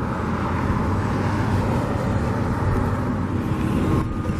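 Steady engine and road noise of a moving car.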